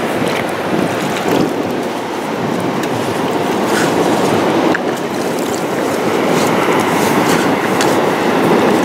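Steady rushing noise of ocean surf and wind on the microphone, with a few faint clicks.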